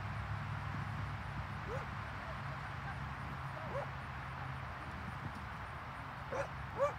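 A dog giving four short, high yips: two about two seconds apart, then two close together near the end, the last the loudest. A low steady hum underneath drops away about two-thirds of the way through.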